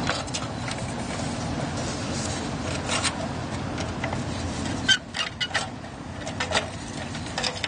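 Scattered light clicks and taps of a metal-and-glass outdoor light fixture being handled and fitted over its wall bracket. A steady low rumble runs underneath and drops away about five seconds in.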